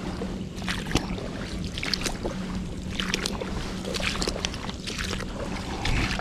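Boots wading through shallow water among grass, a splash with each stride about once a second.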